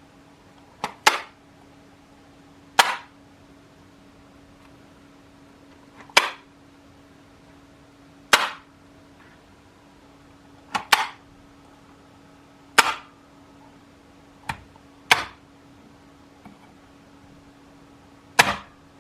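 About a dozen sharp clicks, roughly one every two seconds and some in quick pairs, over a faint steady hum.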